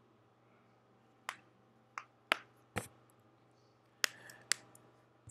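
Seven short, sharp clicks at uneven intervals, the loudest right at the end, over a faint steady hum.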